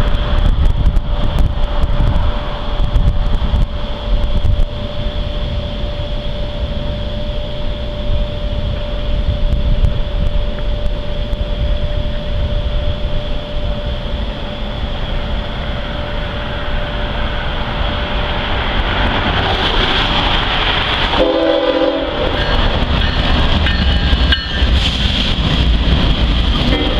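Norfolk Southern intermodal freight train approaching and passing close by: its diesel locomotives run with a steady rumble and a steady tone. Near the end the double-stack container cars roll past on the rails.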